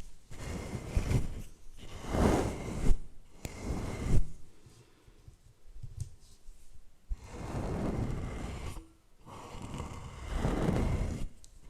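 Microphone brushing: a brush swept and rubbed directly over the microphone in slow swelling passes, with a few sharp taps in between.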